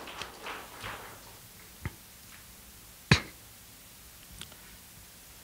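The last few claps of a brief round of audience applause die away. A couple of isolated sharp knocks follow, the loudest about three seconds in.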